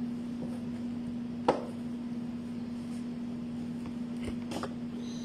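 Kitchen handling sounds as sandwich filling is worked with a spoon and gloved hands: one sharp click about one and a half seconds in, then a few faint taps near the end, over a steady low electrical hum.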